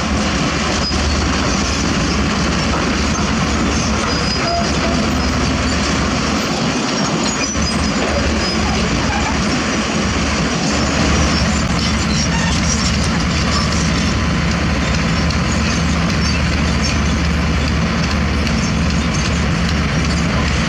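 Heavy diesel earthmoving machinery running steadily, a continuous loud engine drone with a low hum.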